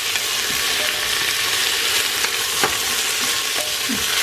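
Sliced red onions frying with a steady sizzle in an aluminium pressure cooker pot, stirred with a wooden spatula that scrapes and clicks against the pot a few times.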